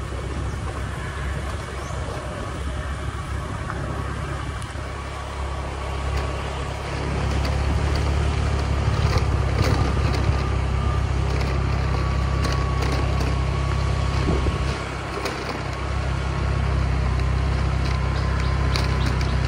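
Motorcycle riding along a bumpy dirt track: engine running with a low rumble of wind on the microphone and small rattles from the bumps. It gets louder about seven seconds in, dips briefly near fifteen seconds, then picks up again.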